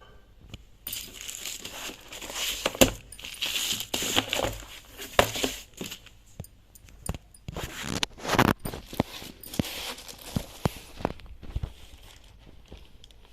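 Keyboard packaging being unwrapped by hand: crinkling and rustling of the wrapping, broken by sharp clicks and knocks. It starts about a second in and dies down near the end.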